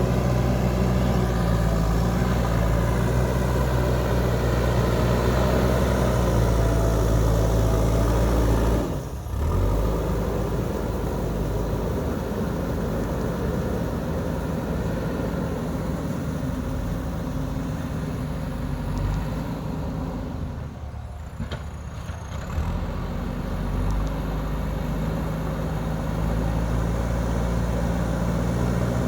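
JCB 3DX backhoe loader's diesel engine running steadily with a deep, even hum. The sound drops suddenly about nine seconds in, dips again around twenty-one seconds, then picks back up.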